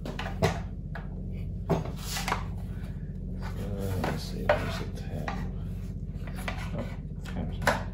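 Hands working a plastic wiring connector loose and handling a motorcycle's plastic front fairing: rubbing and scraping with several short sharp clicks, over a steady low hum.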